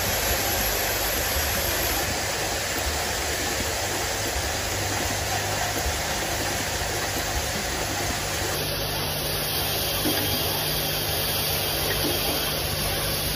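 Automatic hinge assembly machinery running: vibratory bowl feeders and a rotary indexing assembly table make a steady mechanical hum and hiss.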